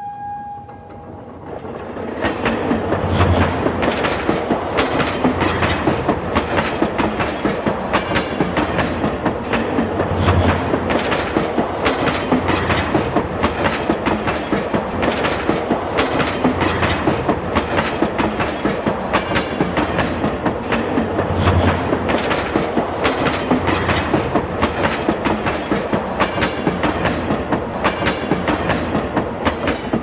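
Train running along the track, its wheels clattering in a steady clickety-clack over the rail joints, with a few heavier low thuds now and then. The last of a horn note dies away at the very start, the clatter builds in over the first two seconds, and it fades near the end.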